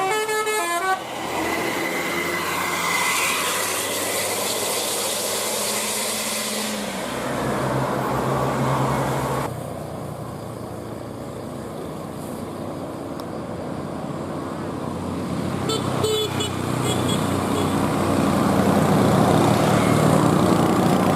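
Buses passing on a road with steady engine and tyre noise. A multi-tone telolet bus horn plays a stepping little melody that ends about a second in, and a second short telolet tootle sounds about sixteen seconds in.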